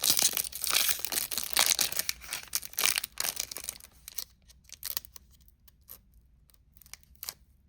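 Foil Pokémon booster pack wrapper crinkling and tearing as it is pulled open for about the first four seconds, then only a few faint light ticks and rustles.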